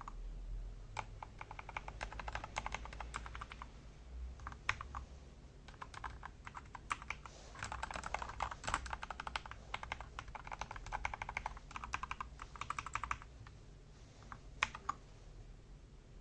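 MK870 mechanical keyboard with Gateron Milky Yellow linear switches and PBT shine-through keycaps being typed on: scattered key presses, then a longer run of rapid keystrokes in the middle, ending with a few single presses.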